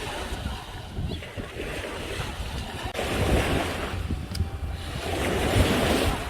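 Sea waves washing and surging, with wind buffeting the microphone as a low rumble; the wash grows louder about three seconds in.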